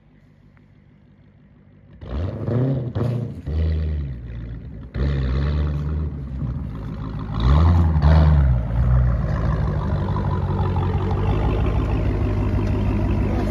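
2018 Dodge Challenger SRT Hellcat's supercharged V8 revving hard in rising and falling surges from about two seconds in, with a sharp break near the middle, as the rear tyres spin and smoke on a launch-control start. It settles into a steady high-rev drone for the last few seconds. The wheelspin is launch control failing to hold the tyres, against what the driver expected.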